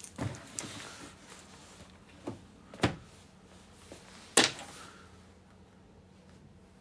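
A few sharp knocks and clacks, the loudest about three seconds in and again a second and a half later.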